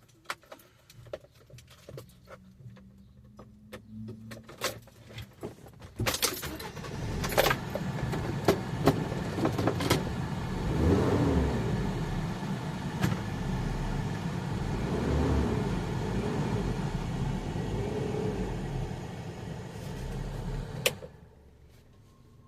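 Keys clicking and jangling at the ignition, then a car engine starts about six seconds in and runs, its pitch rising and falling twice. Near the end the noise drops away sharply.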